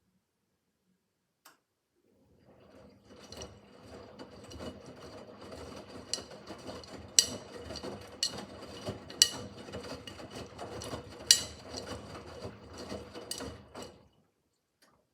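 Miele W5801 washing machine drum turning during a wash, building up over a couple of seconds, with laundry tumbling and several sharp knocks, then stopping about a second before the end.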